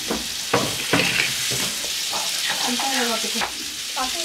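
Forks and ceramic serving dishes clinking against each other and the glass-topped table as pasta is served, several sharp clinks in the first second and a half, over a light background hiss. A few brief voices follow about two seconds in.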